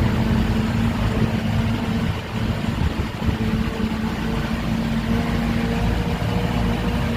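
Steady drone of a motor vehicle's engine and road noise, with a low hum.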